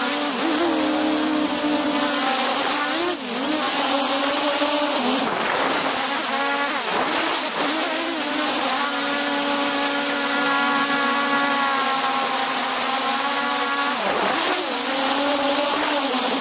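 DJI Mavic 2 Pro drone's motors and propellers whining close to the microphone over a hiss of rushing air. The pitch dips and recovers several times as the motors change speed.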